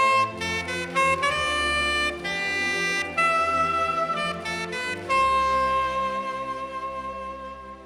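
Soprano saxophone playing a slow hymn melody over low sustained accompaniment, closing on one long held note that fades away near the end.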